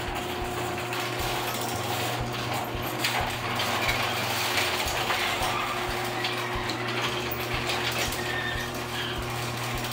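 Sectional garage door closing under an electric opener. The motor hums steadily while the rollers click and rattle irregularly along the steel tracks, one of them a freshly replaced roller. The sound stops shortly after the door reaches the bottom.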